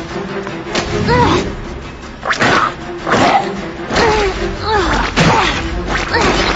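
Cartoon action-scene soundtrack: background music under a series of sharp hits and whooshes, roughly one a second, with short swooping pitched effects between them.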